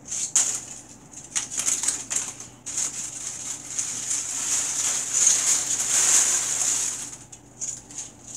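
A bathtub's worth of dry potato chips crackling and rustling as a body shifts in them and hands scoop them up. Short crackles in the first few seconds, then a longer continuous rustle that eases off near the end.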